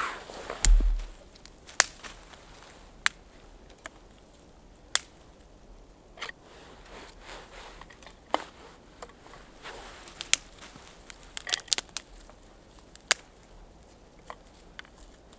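Irregular sharp clicks and snaps, about one or two a second, with a heavy thump just under a second in.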